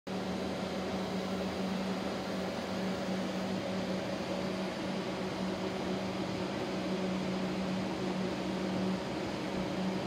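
Panasonic CS-YN9TKJ split air conditioner indoor unit running, its fan blowing a steady rush of air, with a steady low hum that stops about a second before the end.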